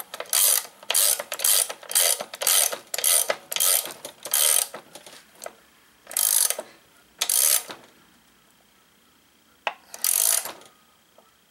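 Ratchet wrench clicking as it tightens the screw of a crankshaft straightener down onto a bent lawn-mower crankshaft, about two quick strokes a second, then slowing to three longer strokes with a single sharp click near the end. The screw is being wound tight to press the crankshaft's high spot straight.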